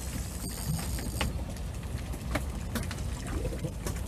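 Spinning reel cranked against a hooked fish, with a few sharp irregular clicks over a steady low rumble of boat and wind noise.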